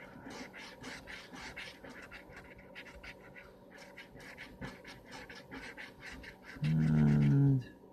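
Scraping the coating off a scratch-off lottery ticket in quick, evenly repeated short strokes.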